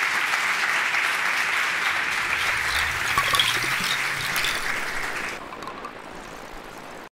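Audience applauding steadily. The applause drops away about five seconds in and is cut off shortly before the end.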